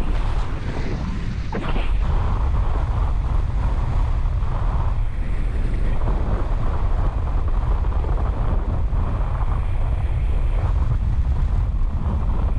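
Loud wind noise on the microphone from the airflow of a speedwing flight, a steady rush that eases briefly about a second in.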